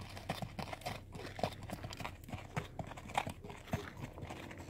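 Horse moving about, with irregular hoof clops and knocks and some rustling.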